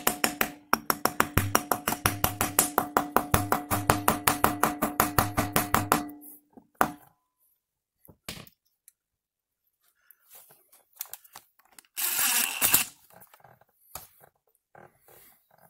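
A hammer rapidly tapping a metal drift held in a port on a Subaru EJ20 twin-turbo's left cylinder head, about eight or nine even strikes a second with a metallic ring under them, as the head's turbo oil port is being blocked off. The tapping stops about six seconds in, followed by a few single knocks and a brief rustle.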